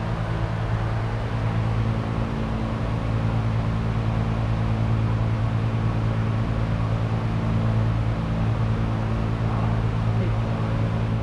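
A steady, low mechanical hum at one constant pitch, over a wash of noise, unchanging throughout.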